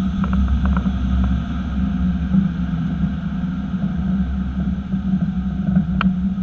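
Steady low rumble of a 2018 Chevy Silverado pickup underway, with a few light knocks in the first second or so and one sharper click about six seconds in. These are the kind of rear-end clunks the owner complains of and links to the leaf-spring suspension.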